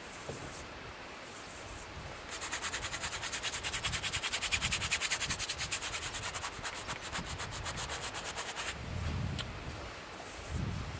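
Wide flat paintbrush scrubbing oil paint onto a canvas in rapid back-and-forth strokes, several a second. The strokes start about two seconds in and stop about a second and a half before the end.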